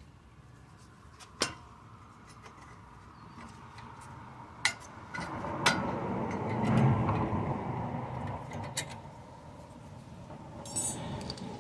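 Scattered sharp metallic clicks and clinks, with a longer scraping rustle in the middle, as the anti-rattle spring is pried off a front brake caliper.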